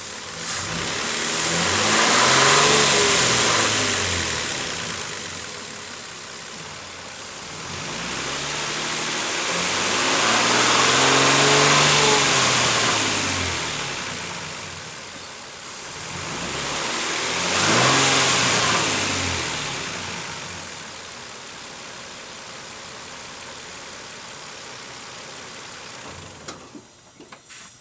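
2007 Nissan Frontier engine revved up and let back down to idle three times, with no timing-chain whine to be heard: the camshaft chain and tensioner face have just been replaced.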